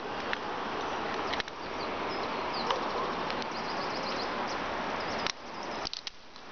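Small birds chirping over a steady rushing noise, with a sharp click about a second and a half in and another just past five seconds, after which the noise drops away briefly.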